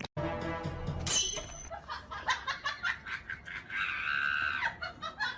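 Music, with a brief high squeal about a second in and a held high-pitched sound around four seconds in.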